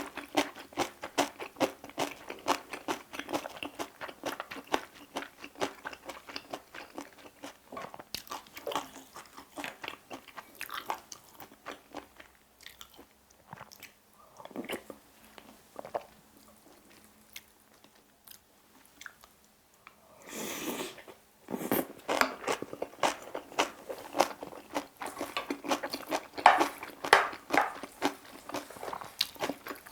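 Close-miked mouth sounds of chewing bibimbap with crunchy seasoned vegetables: rapid wet crunching and mouth clicks, thinning to a quieter stretch in the middle. A short noisy burst about two-thirds of the way through, then the crunching resumes.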